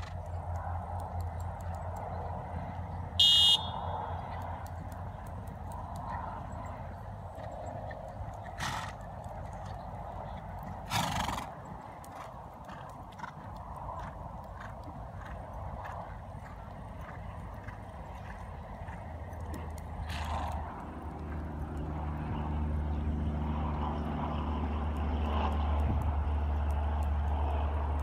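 Open-air background with a steady low rumble, a short high-pitched call about three seconds in, and a few brief knocks. A low engine drone comes in and grows louder about two-thirds of the way through.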